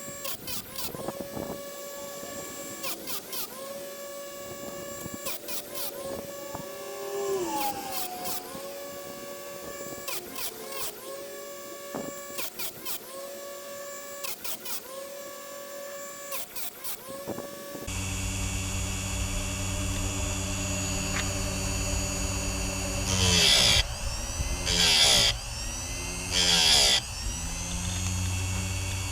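Electric chainsaw sharpener's grinder motor running in short repeated bursts, about one every second and a half. After a sudden change partway through, a steady low hum with three loud bursts near the end.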